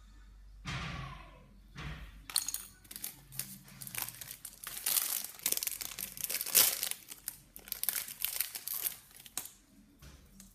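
Packaging crinkling and tearing as a small sealed packet is opened by hand: a long run of quick rustles and crackles.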